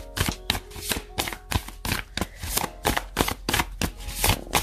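A deck of oracle cards being shuffled by hand, the cards snapping and slapping against each other in quick, irregular strokes, about five a second.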